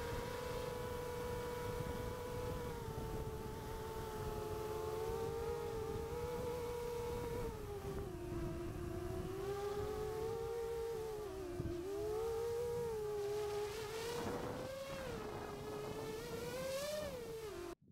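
7-inch FPV quadcopter's motors and propellers whining, heard from on board, the pitch dipping and rising as the throttle changes. It cuts off suddenly near the end.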